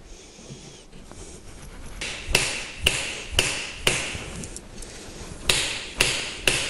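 Butt of a hammer's new hardwood handle struck down on an anvil, seating the steel head onto the handle. It gives seven sharp knocks, each with a brief metallic ring: a run of four about two seconds in, then three more near the end.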